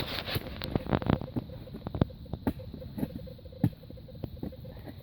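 Irregular clicks, knocks and scrapes of dug-up pocket watches being handled, in quick uneven succession.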